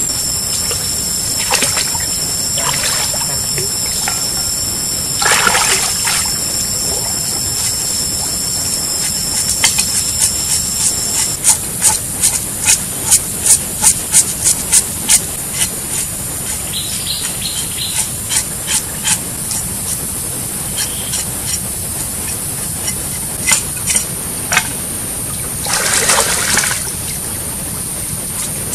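A cleaver blade scraping along a water snake's scaly skin in repeated short strokes, about two a second for several seconds in the middle, with a few more strokes later, over trickling stream water and a steady high hiss.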